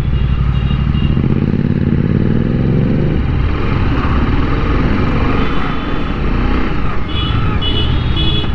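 Royal Enfield Interceptor 650 parallel-twin engine and exhaust being revved: the engine note climbs from about a second in, then drops back and runs on steadily.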